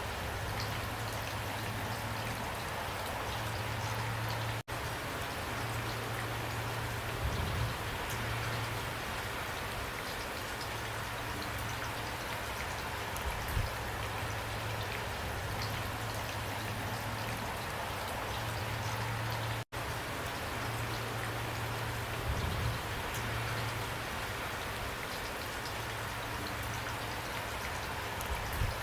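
Steady rain falling, with drops landing now and then as low thuds. The sound cuts out for an instant twice.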